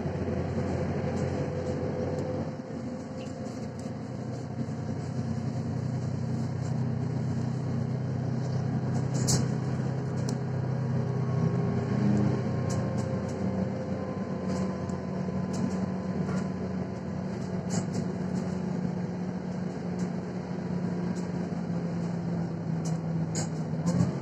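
Inside a Mercedes-Benz Citaro C1 facelift city bus under way: the diesel engine drones steadily, its note rising about halfway through with a faint rising whine. Scattered clicks and rattles come from the bus's body and fittings.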